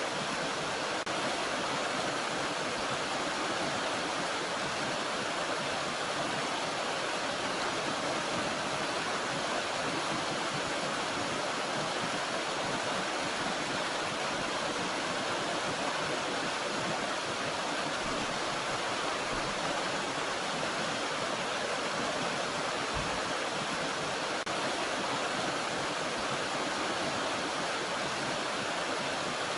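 Water of a small mountain stream rushing steadily, an even hiss that does not change.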